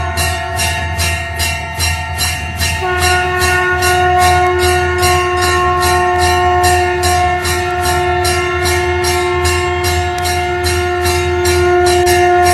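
A conch shell (shankh) blown in a long, steady horn-like note that breaks off and is taken up again about three seconds in, over a temple bell rung in quick, regular strokes, about three a second.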